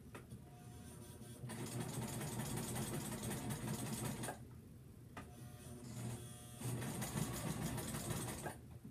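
Electric sewing machine stitching fabric in two runs of a few seconds each. It starts about a second and a half in, stops for about two seconds in the middle, then runs again.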